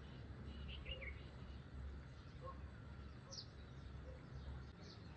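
Faint birds calling: a few short chirps about a second in, then a sharp, high, falling call a little past the middle, over a steady low rumble.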